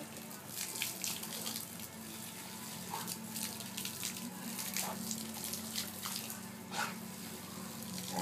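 Water spraying from a garden hose, broken by many short irregular splashes and snaps as a dog bites at the jet.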